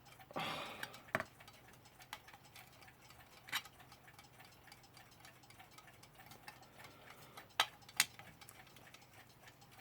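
Weltime mechanical alarm clock ticking faintly and steadily, with a few louder sharp clicks and knocks from handling its metal case.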